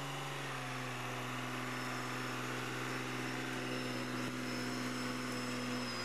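Diesel engine of a loaded logging truck running at low revs as it crawls along, a steady drone whose pitch shifts slightly about half a second in.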